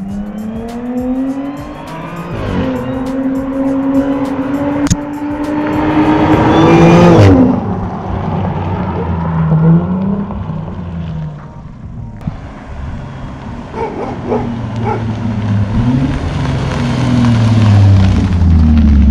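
Car engine accelerating hard, its pitch climbing, dipping at a gear change about two and a half seconds in, then climbing again until it cuts off sharply about seven seconds in; after that, rougher engine and road noise that builds toward the end.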